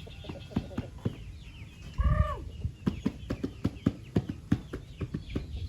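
Chickens clucking in a quick run of short calls, with one louder, drawn-out arched call about two seconds in.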